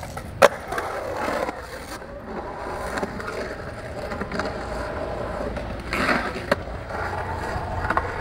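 Skateboard wheels rolling on smooth concrete, with a sharp knock of the board about half a second in and another around six and a half seconds.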